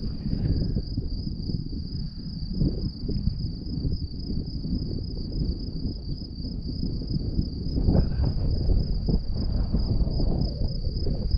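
Insects in the meadow grass, crickets or grasshoppers, trilling in one high, unbroken chorus, with wind buffeting the microphone as an uneven low rumble underneath.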